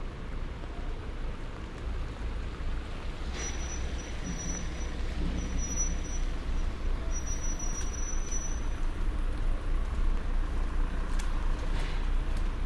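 Light rain hissing on a wet city street over a low rumble of traffic. A thin high squeal sounds on and off for a few seconds in the middle.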